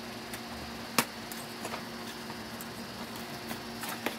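Hands handling a cardboard toy box with a clear plastic window: one sharp click about a second in, then scattered lighter clicks and crinkles near the end, over a steady low background hum.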